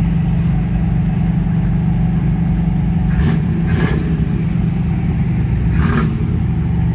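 Car engine idling steadily, with a few short hissy bursts over it about three, four and six seconds in.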